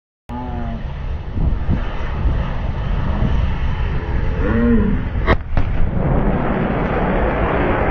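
Slowed-down recording of an F/A-18F Super Hornet jet passing low at about the speed of sound: a deep, loud rumble with low moaning and groaning tones, then a single sharp pop about five seconds in, the sonic boom. The jet noise keeps building toward the end.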